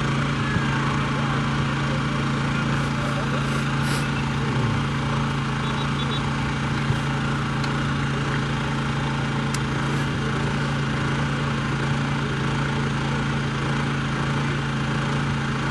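A small engine running steadily with a constant, even hum.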